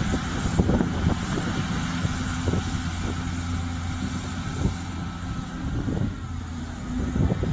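A 60-ton material handler runs steadily with a low machine hum, and short knocks come every second or two.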